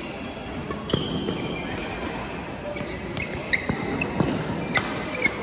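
Badminton rally: sharp racket strikes on the shuttlecock and short squeaks of court shoes on the floor, one hit about a second in and a cluster of hits and squeaks in the second half, over the steady din of other games in a large hall.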